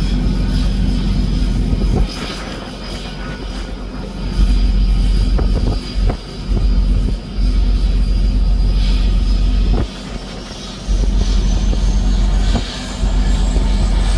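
Twin turboprop engines of a de Havilland Canada DHC-6 Twin Otter floatplane running on the water, with a high whine that rises in pitch through the second half as power comes up for the take-off run. Under it a low rumble drops away abruptly several times and returns.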